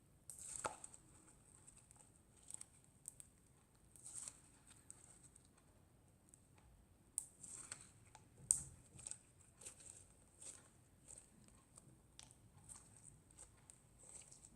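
Slime being stretched and worked by hand: faint, scattered sticky crackles and clicks, with louder snaps about half a second in and about eight and a half seconds in.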